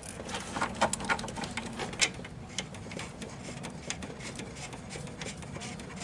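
Scattered light clicks and taps of a metal car A/C refrigerant line and its threaded fitting being handled and pushed together by hand, most of them in the first half, with a sharper click about two seconds in.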